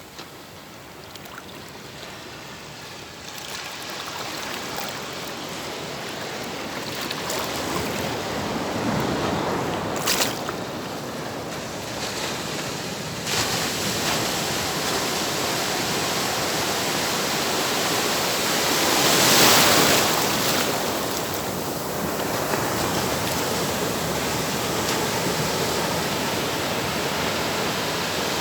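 Ocean surf: waves washing and breaking on the shore, building up over the first several seconds, with the loudest wave crash about two-thirds of the way through.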